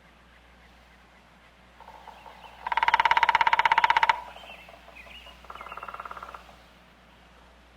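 Woodpecker drumming: a loud, very rapid roll of even strikes lasting about a second and a half, then a second, softer and shorter roll, with faint bird chirps in the background.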